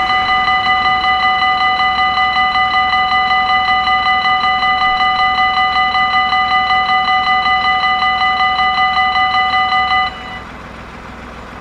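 Dutch level-crossing warning bell ringing rapidly, about five strokes a second on a steady ringing tone, while the barriers rise after the train has passed. It cuts off suddenly about ten seconds in, as the warning lights go out.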